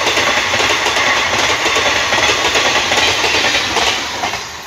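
Indian Railways passenger coaches rushing past at speed at close range, wheels clattering on the rails. The sound starts to fade about four seconds in as the last coaches go by.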